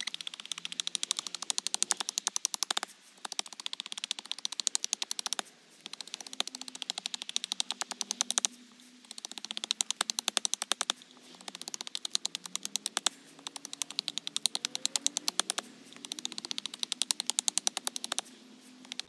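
Knife chopping and carving into a sycamore stick being shaped into a bow-drill spindle: very fast runs of sharp wooden knocks, about seven runs of two to three seconds each with short breaks between.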